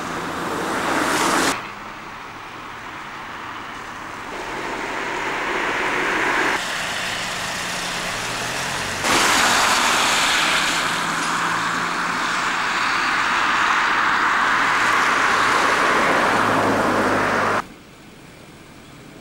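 Road traffic on snow- and slush-covered roads: a steady hiss of car tyres and engines, with no rhythm. The level jumps abruptly up and down several times and drops sharply near the end.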